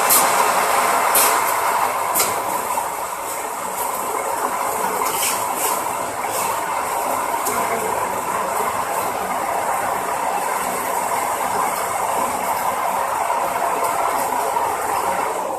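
Coil stretch wrapping machine running as it wraps a bicycle tyre in stretch film: a steady mechanical whir from the rotating wrapping ring and tyre drive rollers, with a few light clicks in the first half.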